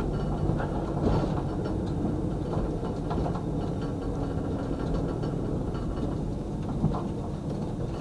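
Vehicle engine and road noise while driving, a steady low hum with a few light knocks about a second in and near the end.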